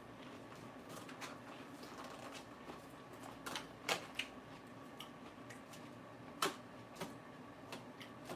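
Person chewing crisp raw lettuce: irregular crunches and crackles, the loudest about four seconds in and again about six and a half seconds in, over a faint steady hum.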